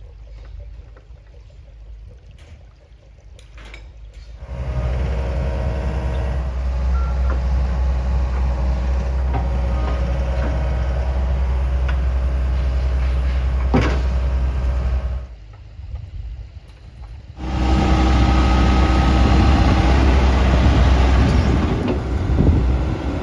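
Heavy diesel engine running steadily, loud and low, cutting in abruptly about four seconds in, dropping out for a couple of seconds around the middle and cutting back in.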